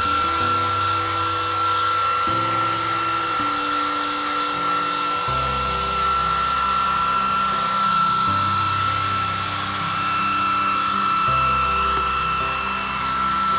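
Hand-held hair dryer running steadily, a high motor whine over a rushing hiss of air, drying a long-haired cat's wet fur. Background music with slowly changing low chords plays underneath.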